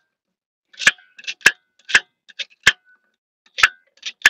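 Knife chopping celery on a wooden cutting board: a series of short, sharp chops, about two a second, starting about a second in.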